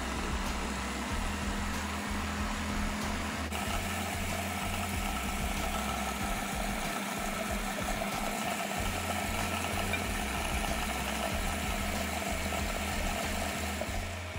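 Food processor motor running steadily, its blade whirring through chickpeas as they are puréed into hummus.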